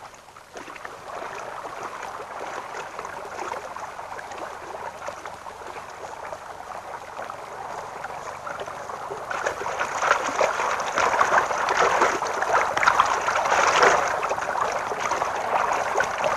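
Rushing, splashing water, growing louder about ten seconds in.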